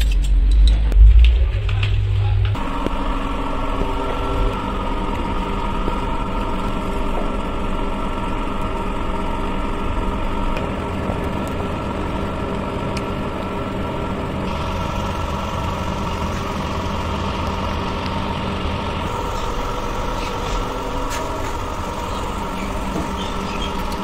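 A heavy engine running steadily at idle, a held hum with several steady tones, after a loud low rumble in the first two seconds or so.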